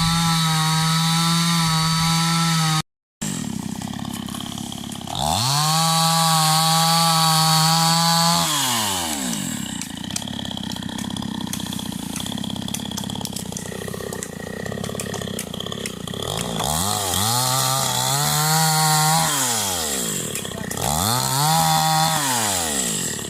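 Two-stroke chainsaw revving to full throttle and held there at a steady pitch four times, each time dropping back in pitch to idle between runs. The sound cuts out for a moment about three seconds in.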